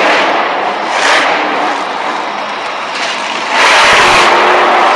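Monster truck's supercharged V8 engine running hard during a freestyle run, suddenly much louder about three and a half seconds in as the truck is gunned up onto its rear wheels.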